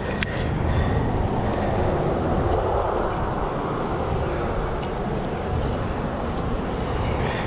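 Steady wind rumble buffeting a chest-mounted GoPro's microphone as the wearer moves along, with a few faint ticks.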